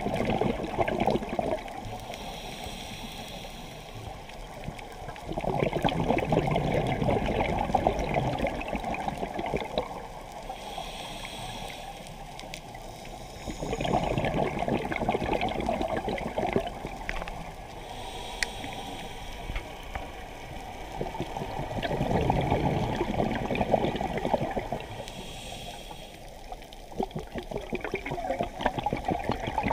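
Scuba diver breathing through a regulator: exhaled bubbles gurgle out in a burst of three to four seconds about every eight seconds, with a quieter hiss of inhalation between them.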